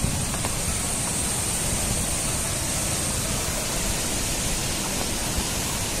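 Steady rushing of river water flowing over rocks and small rapids, an even hiss with no breaks.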